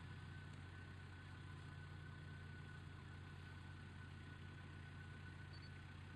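An off-road 4x4's engine idling steadily.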